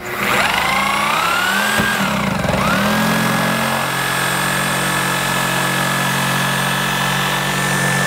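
Cordless reciprocating saw (Sawzall) starting suddenly and cutting through a plastic-covered metal tube that may be magnesium. Its motor pitch rises, sags once about two seconds in, then runs steady.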